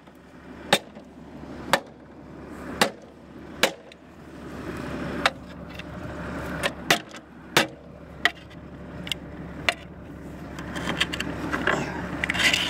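Tractor engine running steadily under load while pulling a mounted plough through a meadow, with sharp knocks about once a second. A scraping noise builds near the end.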